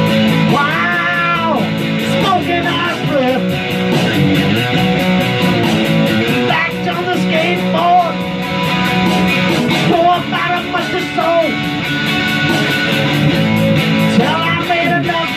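Electric guitar playing a slow rock groove over a steady beat, with a wailing lead line that bends up and down in pitch several times.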